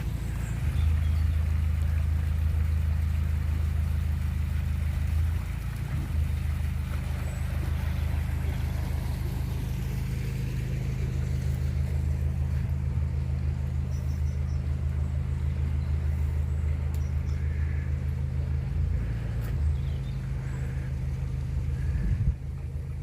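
Narrowboat's diesel engine ticking over at low revs: a steady low throb whose note shifts briefly a few times.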